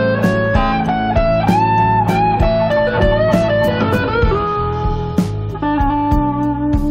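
Background music: a guitar melody of held notes over a steady bass line, with a regular beat.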